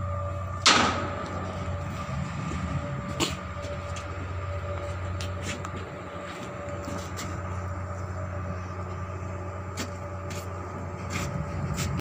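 A heavy-equipment diesel engine runs steadily at idle. Over it comes a loud metallic clank about a second in, another about three seconds in, and lighter knocks from steel parts being worked on.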